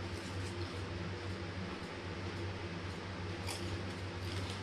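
Steady low hum in the room, with a few faint crackles of potato crisps being chewed about three and a half seconds in and again near the end.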